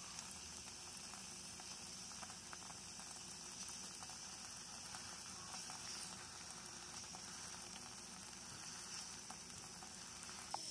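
Faint, steady sizzling hiss of food cooking on the stove, with a few soft scattered ticks.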